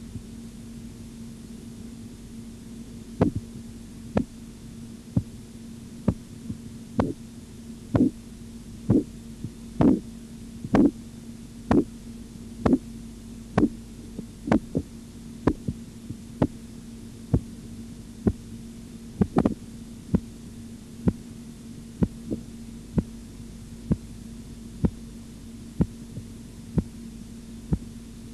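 Korotkoff sounds heard through a stethoscope over the arm as a blood pressure cuff deflates. Short taps about once a second begin a few seconds in, which marks the systolic pressure. They grow louder, then soften, over a steady low hum.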